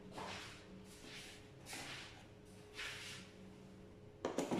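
Packaging being opened and handled: several short, soft rustles and scrapes, then louder clicking handling noise near the end.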